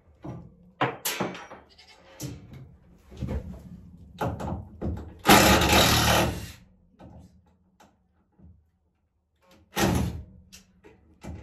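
Goats bleating several times in a small room, mixed with short runs of a cordless drill backing screws out of a wire shelf's wall bracket. There is a quiet spell of about two seconds past the middle.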